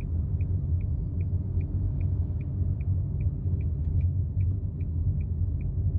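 A steady low rumble with faint, evenly spaced ticks about two and a half times a second.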